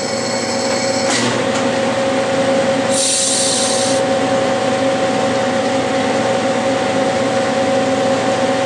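Clausing metal lathe running with a steady whine, getting louder about a second in as the spindle comes up to speed. About three seconds in there is a brief hiss of the tool facing the brass flange.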